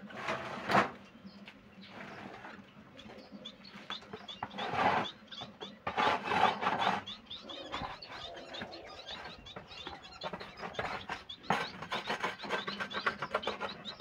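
Caged finches chirping over and over in short rising calls, thickest in the second half, over scraping and knocking as a plastic cage tray is handled; the loudest knock comes about a second in.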